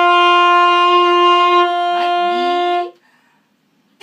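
Alto saxophones holding the octave-key D (the thumb key pressed) as one long, steady note, which stops about three seconds in; it is long-tone practice of the upper register. After a second's pause a new held note starts right at the end.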